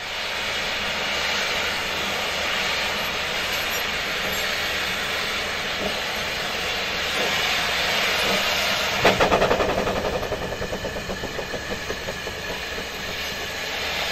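Narrow-gauge Hunslet saddle-tank steam locomotive Blanche, hissing steadily from its open cylinder drain cocks. About nine seconds in, a sudden burst of rapid exhaust beats, about four or five a second, fades over a few seconds: the driving wheels slipping on damp rail as she starts her train.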